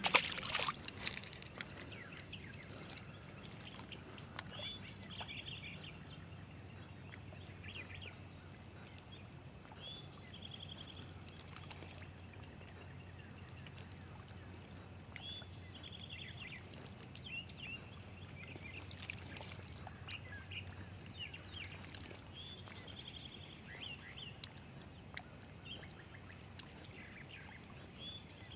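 A small fish splashes into the lake water as a released bluegill is dropped back. Then faint open-air background with distant birds giving short chirps and trills every few seconds.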